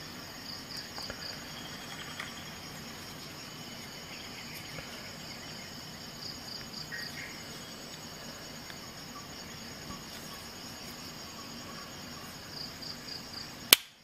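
A cricket chirping in short, evenly pulsed high chirps every few seconds, with faint small clicks of the multi-tool being handled. A single sharp, loud click near the end.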